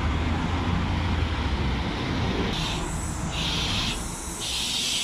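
City street traffic: a steady rumble of road vehicles, with a run of short, high hissing sounds about once a second in the second half.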